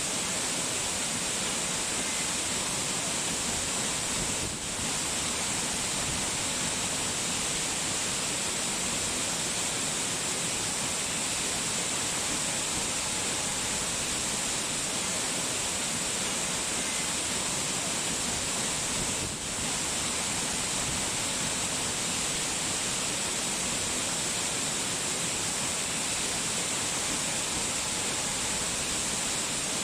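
Steady rushing water, an even unbroken hiss strongest in the high range. It dips briefly twice, about five seconds in and again about twenty seconds in.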